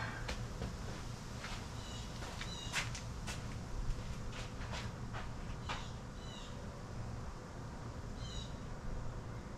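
Scattered light clicks and knocks of small metal parts and tools being handled during a search for a part, most of them in the first six seconds. A short high chirp recurs every two to four seconds over a steady low hum.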